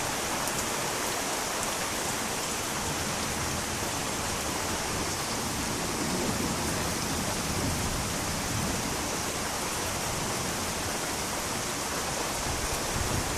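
Steady heavy rain hissing during a thunderstorm, with a faint low rumble swelling briefly about halfway through.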